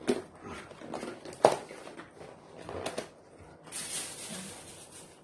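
Food containers and utensils being handled: a few light knocks and clicks, the sharpest about a second and a half in, then a steady hiss lasting about a second and a half near the end.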